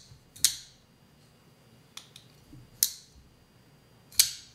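Custom folding knife with a bearing pivot, freshly reassembled with oiled detent, being flipped open and snapped shut: four sharp metallic clicks as the blade locks and closes, the loudest near the end.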